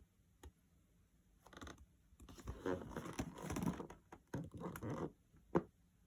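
Objects being handled: irregular rustling and clattering for a few seconds, then a single sharp knock near the end.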